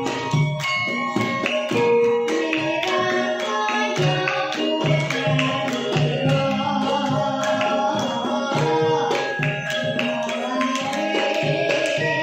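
Traditional Javanese music: rhythmic hand-drum strokes under sustained, ringing pitched notes, with a young girl singing.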